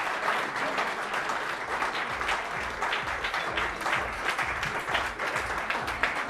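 Applause from a crowd: many hands clapping in a steady, dense patter.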